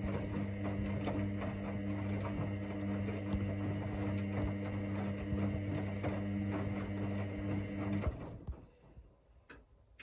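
Hoover DynamicNext front-loading washing machine in its main wash: the drum motor hums steadily as it turns the wet laundry, which knocks and tumbles inside. The motor stops about eight seconds in and the drum comes to rest, leaving it much quieter apart from a faint click or two.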